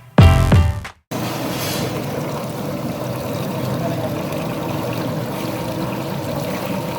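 A galangal peeling machine running steadily, a constant mechanical whirr mixed with splashing water, after a second of music that cuts off.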